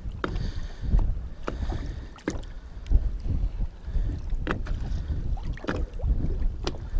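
Small waves lapping and slapping against the side of a boat, a few short sharp splashes spread through, over a low rumble of wind on the microphone.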